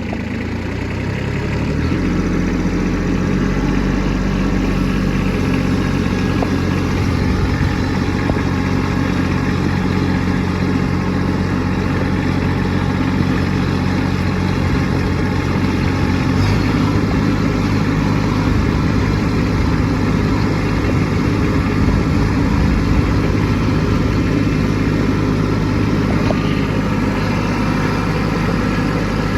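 Kubota B2601 compact tractor's diesel engine running steadily, building up over the first couple of seconds, with a change in its note about halfway through.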